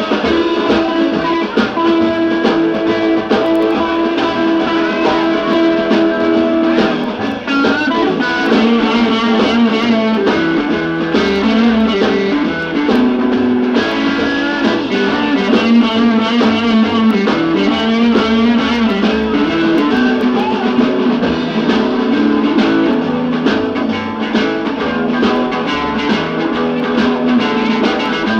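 Live rhythm-and-blues band playing an instrumental passage, with electric guitar prominent over piano, upright bass and drums.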